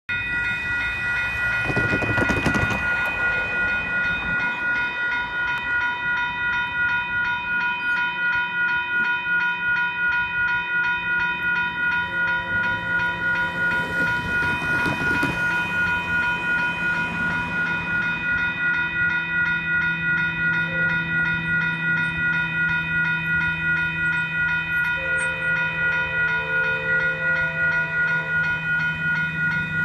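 Electronic railroad crossing bell (WCH Type 1.5 Generation 2) ringing in rapid, evenly repeating dings at an activated crossing, the warning that a train is approaching. Passing traffic whooshes by about two seconds in and again about fifteen seconds in, and a low hum grows in the second half.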